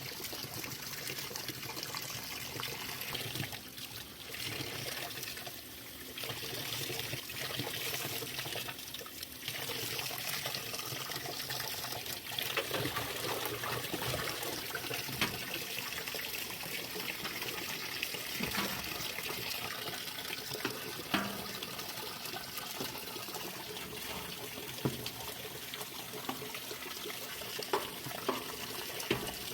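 Water running and trickling steadily, with a few light knocks in the second half.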